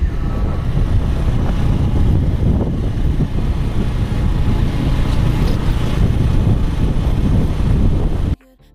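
Wind buffeting the microphone over the rumble of a vehicle travelling along a road, a dense low noise with no distinct pitch. Near the end it cuts off abruptly, and quiet music follows.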